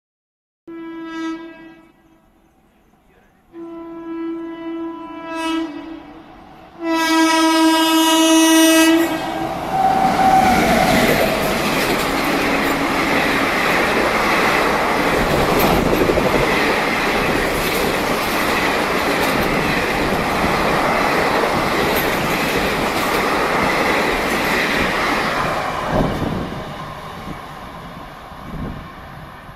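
Garib Rath Express locomotive sounding its two-tone horn three times, each blast louder than the last, with the third the loudest. The train then rushes past at speed, wheels clattering, and fades away near the end.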